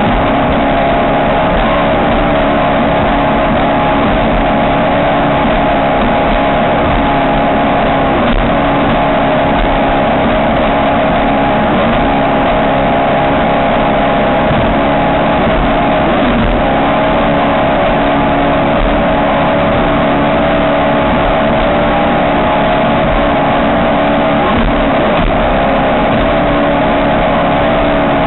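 Ski race boat's engine running at steady revs over a dense rushing noise, its pitch dipping briefly about halfway through.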